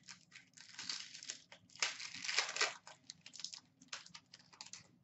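A trading-card pack's wrapper being torn open and crinkled by hand, with rustles and small clicks as the cards inside are handled. The crinkling is loudest about two seconds in and stops near the end.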